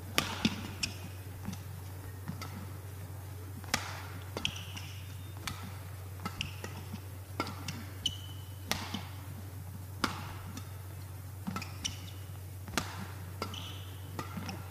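Badminton rally: sharp cracks of rackets striking the shuttlecock every second or two, with short squeaks of court shoes on the mat between the hits, over a steady low hum.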